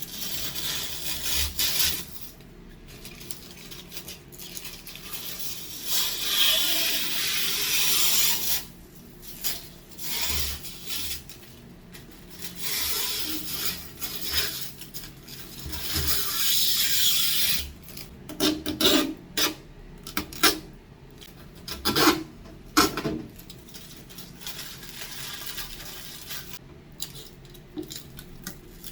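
Repeated bursts of rubbing and scraping, each lasting one to a few seconds, with a cluster of sharp knocks and clatter about two-thirds of the way through.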